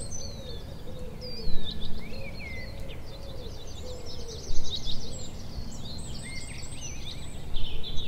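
Outdoor background: small birds chirping and singing, with a few louder chirps, over a steady low rumble.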